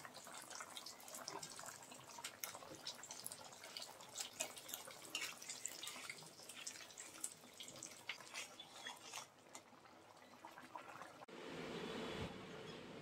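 Fish curry in a metal pot simmering on the stove, bubbling with many small, irregular pops and clicks, while a steel ladle stirs it. Near the end the bubbling cuts off abruptly to a steady low hum.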